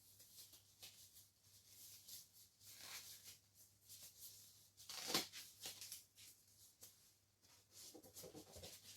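Faint rustling and rubbing of gloved hands working a paint-covered balloon against a canvas, with a louder rub about five seconds in.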